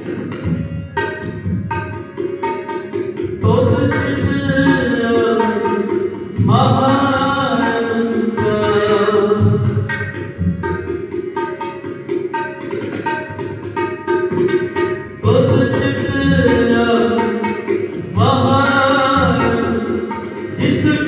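Sikh devotional kirtan: a voice singing long phrases with sliding pitch over steady tabla strokes, the phrases starting afresh every few seconds.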